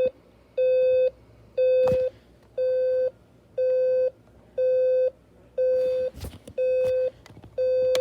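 Talking alarm clock's buzzer alarm sounding: a steady, mid-pitched electronic beep about half a second long, repeated once a second, with a few faint clicks of handling in between.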